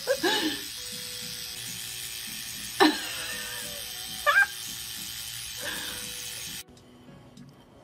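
Electric toothbrush running with a steady buzzing hum that cuts off near the end. Two short vocal cries rise in pitch over the hum, about three and four and a half seconds in.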